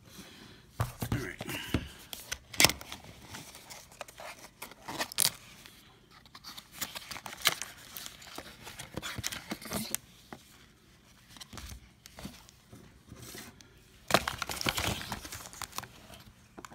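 Cardboard box and packaging being handled: irregular rustling, scraping and sharp clicks as parts are lifted out of the box's insert, with a busier stretch of rustling near the end.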